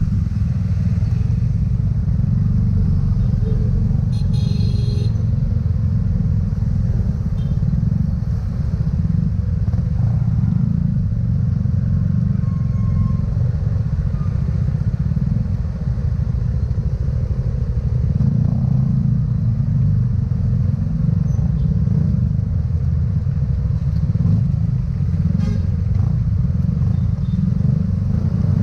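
Steady low rumble of a motor scooter riding through traffic on a wet road. About four seconds in there is a brief high-pitched tone.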